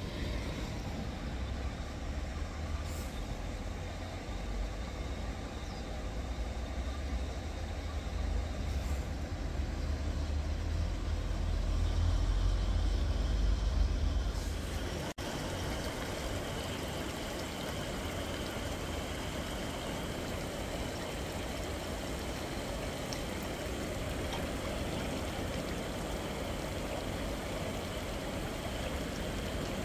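Steady outdoor background noise with no clear single event: a strong low rumble that swells during the first half, then a sudden change about halfway through to an even, lighter hiss.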